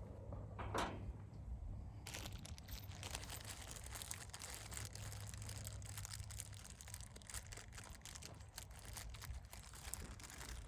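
Rustling and crackling, like plastic or paper being handled, starting about two seconds in and going on as a dense run of small crackles, over a low hum that fades about halfway through.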